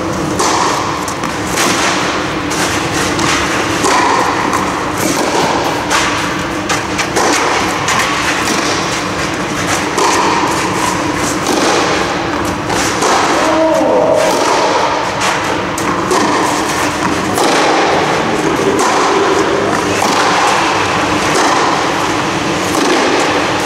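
Tennis rally on an indoor clay court: racket strikes and ball bounces come at intervals, echoing under the air dome, with footsteps on the clay between them. A steady hum runs underneath.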